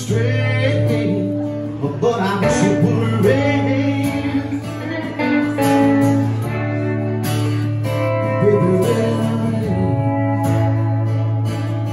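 Live acoustic band playing a slow song: a strummed acoustic guitar and an electric guitar, with a man's voice singing over them.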